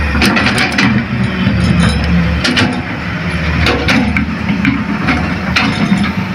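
Heavy diesel engine running steadily, with irregular sharp knocks and clanks scattered through it.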